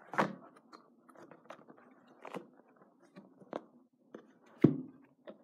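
Handling noises close to the microphone as books are picked up and moved: a string of short knocks, scrapes and rustles, with one louder thump about four and a half seconds in.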